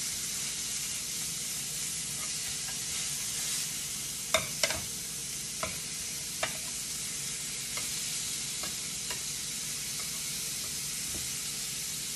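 Ground beef sizzling in a little oil in a pan as a spatula breaks it up and stirs it, with a handful of sharp clicks of the spatula against the pan, the loudest about four seconds in.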